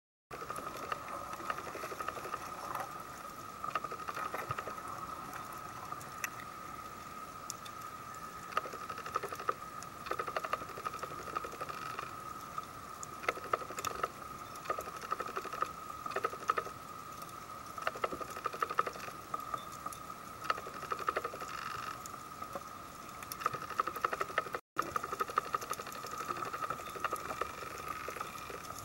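Underwater ambience picked up by a camera in its waterproof housing: a steady faint tone with constant crackling and scattered clicks, in places coming in quick clusters. The sound cuts out for an instant near the end.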